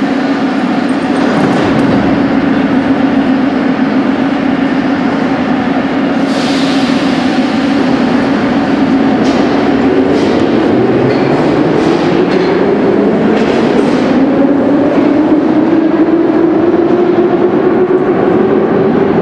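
Metro train pulling out of the station: a steady hum, then from about halfway through a whine that rises steadily in pitch as the traction motors accelerate. There is a short hiss of air about six seconds in, and scattered clicks from the wheels over the rails.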